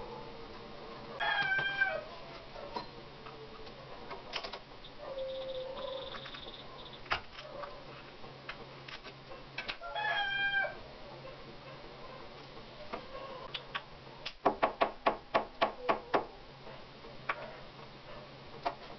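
A knife chopping ginger on a cutting board: a quick run of about ten sharp strikes, some five a second, about two thirds of the way in, with a few single knocks elsewhere. Twice, about a second in and again about ten seconds in, a short animal call sounds, falling slightly in pitch.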